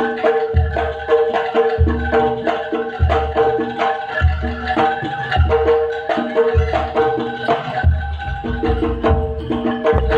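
Jaranan dor ensemble music: sharp hand-drum strokes over ringing gamelan-style metal percussion holding steady pitches, with a deep bass drum hit about once a second.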